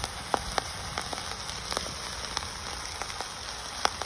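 Biryani pot on its fire making a steady hiss with scattered sharp crackles and pops, the loudest near the end, as the layered meat, sauce and rice cook over the heat.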